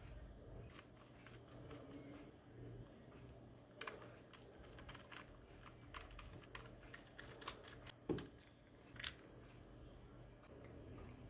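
Faint clicks and light taps of a small precision screwdriver turning the screws out of a jet flame lighter's plastic housing, with a couple of sharper clicks about eight and nine seconds in.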